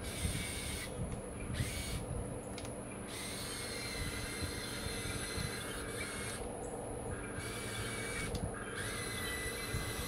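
Small electric motors and gearboxes of a Huina 1580 RC excavator whirring, with a higher whine that cuts out and back in several times as different functions are worked.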